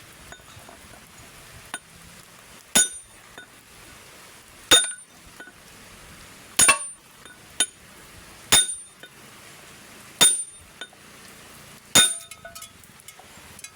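A hammer striking steel on a differential being knocked apart: six loud, ringing metallic blows about two seconds apart, with a few lighter taps between them.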